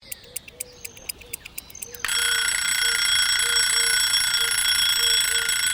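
Alarm clock sound: ticking that quickens for about two seconds, then a loud, steady alarm ring starts and keeps going.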